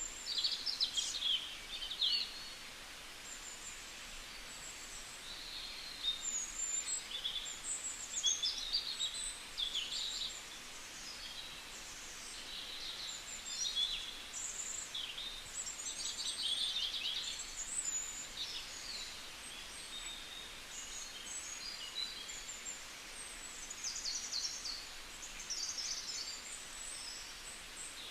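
Several songbirds chirping and singing at once, short high calls and trills overlapping without pause.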